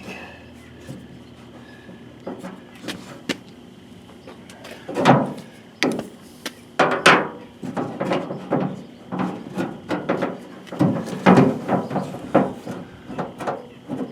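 Metal parts of a tailgate latch mechanism being worked by hand: irregular clicks, knocks and scraping as a latch rod or clip is pushed and fiddled into place, sparse at first and busier from about a third of the way in.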